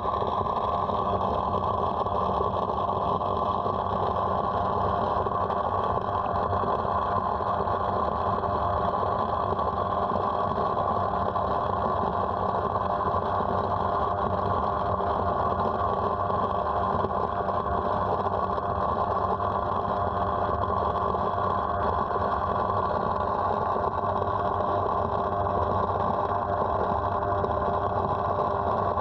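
Steady mechanical drone of a homemade electric-pump-driven ejector running, heard underwater, as its suction hose draws silt off the pond bottom.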